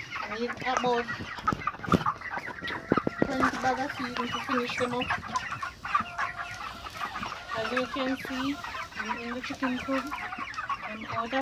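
A flock of young white chickens clucking and peeping, many calls overlapping continuously. A few sharp knocks come about two and three seconds in.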